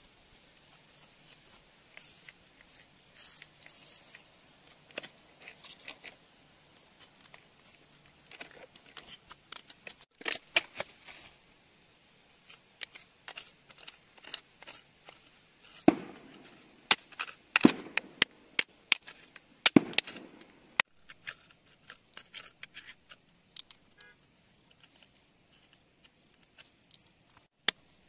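A thin pick poking and scraping through wet gravel and mud, with small sharp clicks as it knocks against pebbles and crystals. The clicks come sparsely at first and are densest and loudest a little past the middle.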